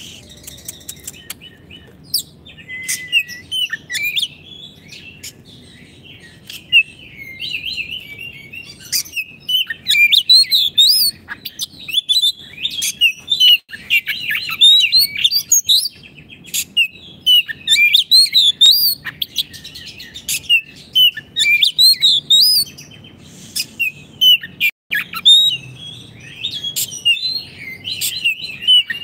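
An Oriental magpie-robin singing a continuous, rapid and varied song of whistled notes gliding up and down, mixed with sharp chips. The song starts softer and turns louder and denser about nine seconds in.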